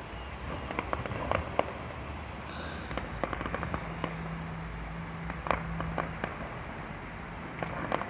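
Fireworks display: scattered sharp cracks and pops of bursting shells at irregular intervals, with a faint low steady hum under it from about three and a half to six seconds in.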